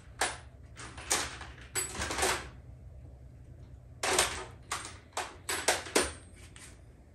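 Irregular short clatters and scrapes of hands and metal parts at work while a power brake booster and master cylinder are being bolted to the firewall. A cluster comes around two seconds in and a busier run between about four and six seconds, over a low steady hum.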